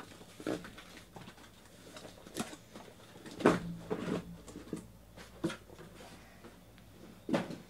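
Cardboard shipping case being turned over and lifted off a stack of boxed trading cards: rustling, scraping and a series of knocks of cardboard on the table. The loudest knock comes about three and a half seconds in, with another near the end.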